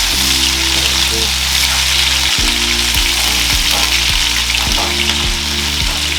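Marinated chicken drumsticks frying in hot oil in a pan, browning on their second side with a steady sizzle.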